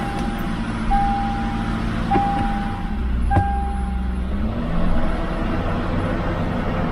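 Toyota 4Runner's cabin warning chime beeping about once a second, five times, then stopping about four seconds in, over the steady hum of the V8 engine running.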